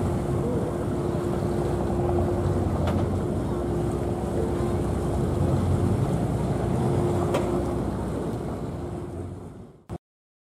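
Motorboat engine droning steadily over open water, with wind on the microphone; it fades out near the end.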